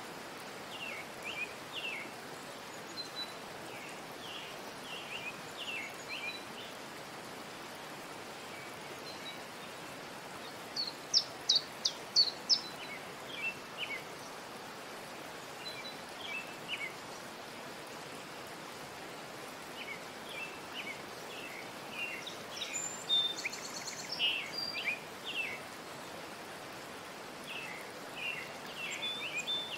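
Small birds chirping and twittering in scattered bursts over a steady background hiss, with the loudest run of sharp, high chirps about eleven seconds in and another busy spell past the twenty-second mark.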